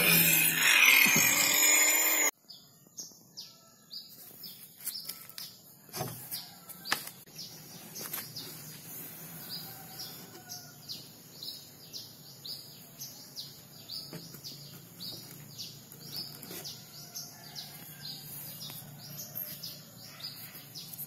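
A handheld electric power tool runs loudly against wooden boat planking for about two seconds, then cuts off abruptly. After that, a bird chirps over and over, short falling chirps about two a second, with a few faint knocks.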